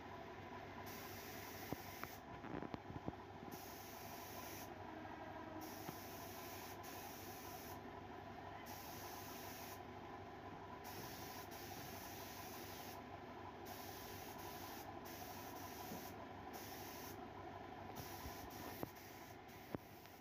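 Steady background hiss, with a few faint knocks about two to three seconds in and again near the end.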